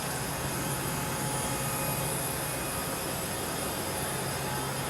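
Steady cabin noise of the International Space Station: the constant whir of ventilation fans and equipment, with a low hum and a few faint high whines.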